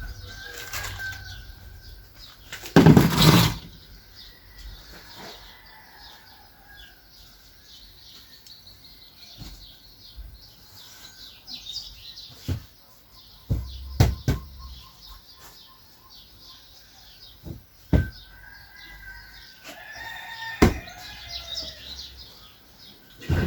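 Birds chirping, with a loud flutter of wings about three seconds in and a few sharp knocks later on.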